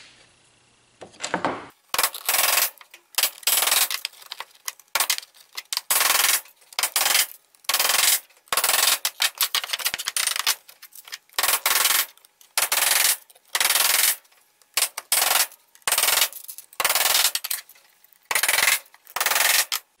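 Hammer driving nails through pine boards into a wooden frame: a long run of sharp, noisy blows at uneven spacing, about one or two a second, starting about two seconds in.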